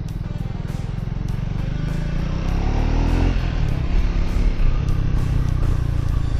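Triumph Speed 400 single-cylinder engine under way, revs climbing about two and a half seconds in then dropping at a gear change before running on steadily, with wind rushing past. It has a smooth note without the deep thump of a Royal Enfield single.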